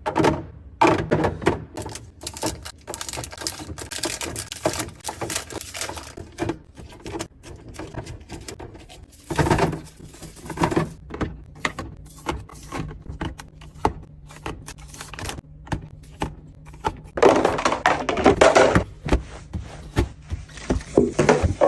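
Containers and food items being handled and set down while a refrigerator is cleaned and organized: a string of irregular clicks, taps and knocks of plastic and glass on shelves. About 17 s in there is a denser stretch of rustling.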